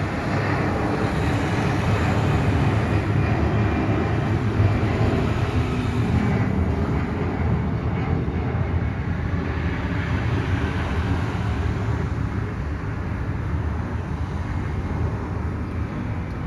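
Airbus A320 jet engines at takeoff power: a loud, steady noise, heaviest in the low range, whose higher hiss fades about six seconds in.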